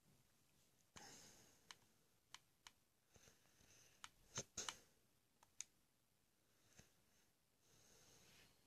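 Faint scattered clicks, about a dozen, sharpest and loudest around the middle, with a short soft rustle about a second in and another near the end.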